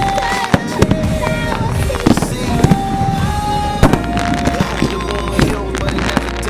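A fireworks display finale: many sharp shell bangs in quick succession, some close together, over a constant crackling din. Music with long held notes plays underneath.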